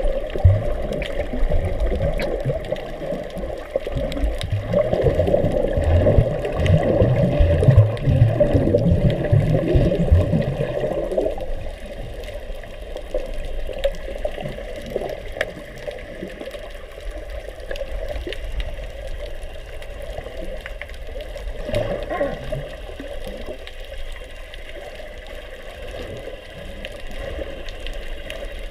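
Muffled underwater water noise heard through a GoPro Hero4's waterproof housing while swimming: irregular churning and bubbling, louder for the first ten seconds or so, then settling to a quieter wash.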